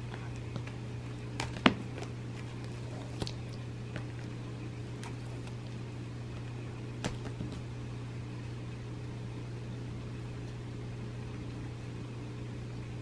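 A steady low mechanical hum runs throughout, with a handful of short sharp clicks and taps as a cat bites and paws at a feather toy on carpet. The loudest click comes about a second and a half in.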